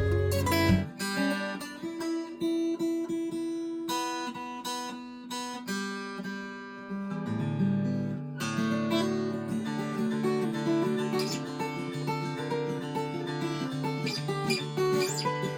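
Steel-string acoustic guitar being played, plucked notes and strummed chords left to ring.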